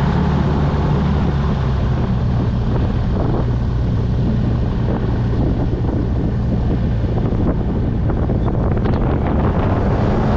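Gyrocopter engine and propeller running steadily at taxi power, a constant low drone, with wind buffeting the microphone in the open cockpit.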